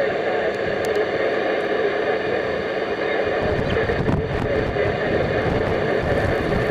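Wind rushing over the microphone, with a gusty low rumble building about three seconds in.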